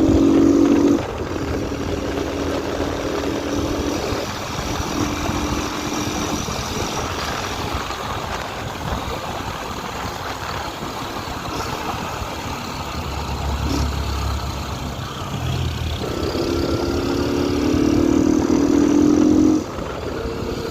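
Yamaha XTZ motorcycle's single-cylinder engine running under way, with no air filter and a washer fitted in the exhaust. The engine note is loudest for the first second and again from about three-quarters of the way through, dropping off sharply both times.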